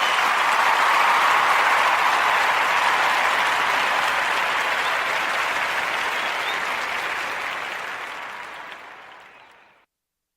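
Crowd applause, loudest about a second in, then slowly fading out until it drops to silence near the end.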